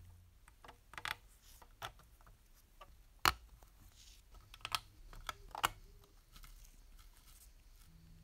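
Small sharp clicks and taps of metal parts on a painted metal model locomotive body as handrail knobs and a thin brass handrail wire are fitted by hand. The clicks are irregular, about six in all, the loudest about three seconds in.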